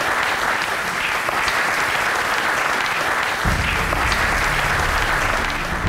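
Audience applauding, a dense, steady clapping. About three and a half seconds in, low sustained music comes in beneath the applause.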